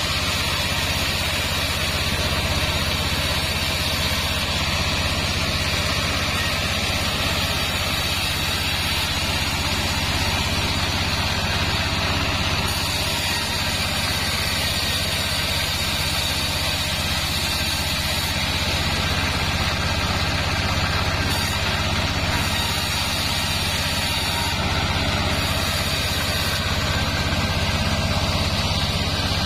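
Band sawmill running steadily, its band blade ripping boards of sengon wood, over a constant low machine hum.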